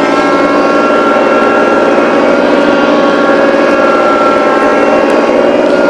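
Small tractor's engine running at a steady speed.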